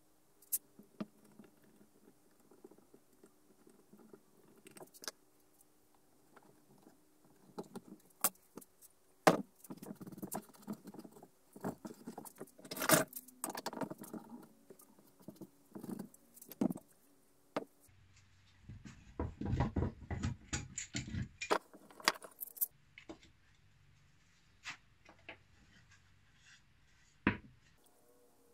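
Workshop handling noise: irregular knocks, clicks and metallic clatter as wooden box parts and steel bar clamps are handled and tightened on a wooden workbench. The sounds are busiest from about a third of the way in to about three quarters through.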